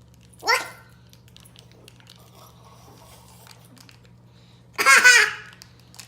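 A young child's high-pitched burst of laughter, loud and brief, about five seconds in, against a steady low hum of room tone.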